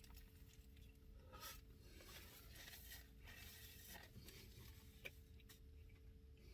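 Near silence with faint, scattered rustles and crinkles from someone eating a turkey sandwich, over a low steady hum.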